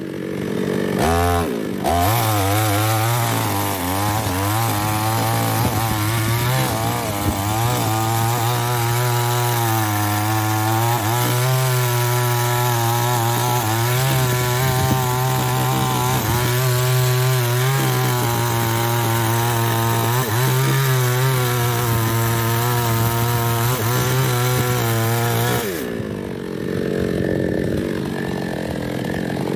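Small two-stroke chainsaw at full throttle cutting through an old mahogany trunk, its engine note wavering and dipping under the load of the cut. Near the end the cutting stops and the engine runs on more quietly.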